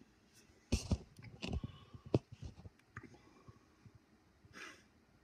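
A run of irregular sharp clicks and knocks, loudest just under a second in and thinning out over the next two seconds, then a short breathy hiss near the end.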